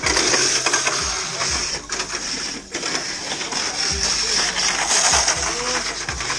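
Tamiya Mini 4WD cars running on a plastic track: a steady high electric-motor whine under rapid rattling and clicking as the small cars clatter through the track sections.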